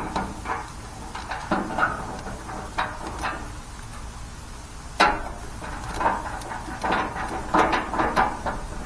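Scattered clicks, scrapes and knocks of metal parts being handled as a grill handle and its standoff are fitted against the sheet-metal lid of a propane grill, with one sharp knock about five seconds in.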